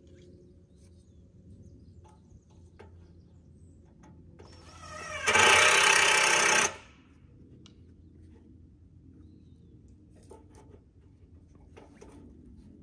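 Power drill driving a screw into a log: one burst of about two seconds a few seconds in, spinning up and then stopping suddenly. Faint knocks and handling clicks before and after.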